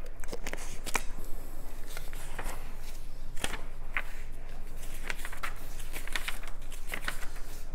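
Pages of a glossy magazine being turned and handled: paper rustling with irregular crisp crackles and flicks, over a faint low hum.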